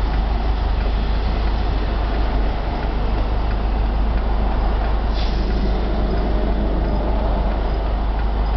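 Steady road and tyre noise inside a moving Subaru Impreza GC8, with a deep low rumble. Under it lies the faint abnormal noise of a worn wheel hub bearing.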